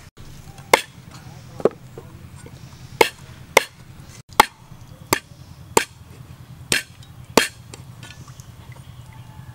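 A knife chopping the claw tips off raw chicken feet on a wooden chopping block: about nine sharp chops, roughly one every three-quarters of a second.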